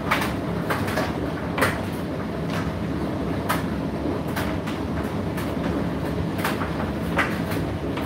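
Indesit IDC8T3 condenser tumble dryer running mid-cycle: a steady motor and drum hum with irregular light knocks and clicks about once a second as the load tumbles in the drum.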